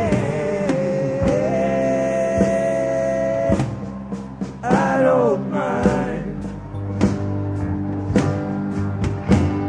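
Music with sustained singing over instruments and occasional drum hits; the held notes break off about three and a half seconds in, followed by sliding sung phrases.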